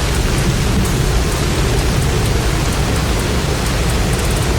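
Storm wind and heavy rain: a loud, steady rushing noise, with the wind buffeting the microphone in low, uneven gusts.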